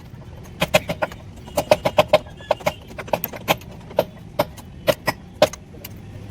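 Sharp metallic knocks and clinks, a few a second in uneven clusters, from tools and parts being worked during a backhoe-loader axle repair, over a steady low hum.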